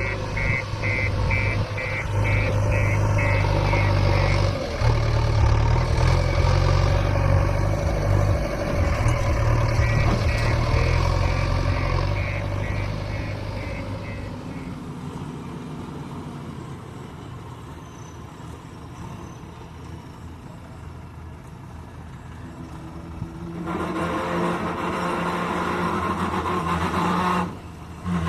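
Heavy diesel machinery engine running under load, with two runs of rapid, evenly spaced beeping from a reversing alarm early on and about ten seconds in. The engine drops back to a quieter run midway, then picks up louder again near the end.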